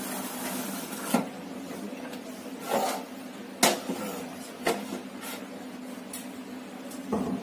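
Sharp metallic clicks and knocks, about half a dozen at irregular intervals, from a gas regulator being handled and fitted onto a small green LPG cylinder and the cylinder being moved.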